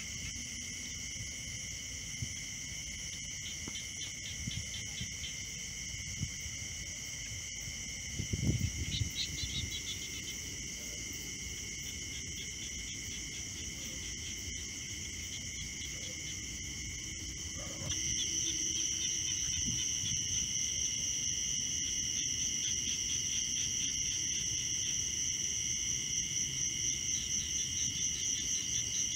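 Steady chorus of night insects trilling at several high pitches, growing louder about two-thirds of the way through. A brief low rumble comes about eight seconds in.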